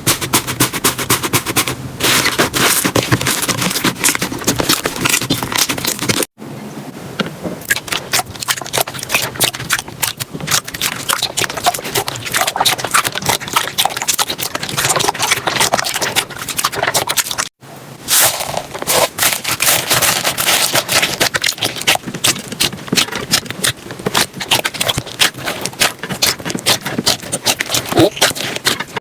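Slime being squeezed and worked by hand, a dense run of sticky crackles and pops. It breaks off abruptly twice, about six and seventeen seconds in, and carries straight on each time.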